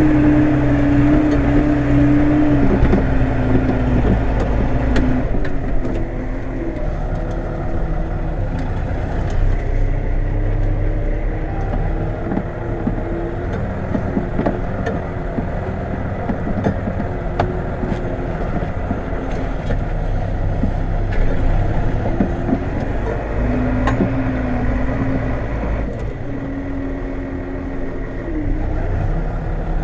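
New Holland 8160 tractor's diesel engine running steadily under load, pulling a four-furrow reversible plough. Its pitch shifts a little now and then.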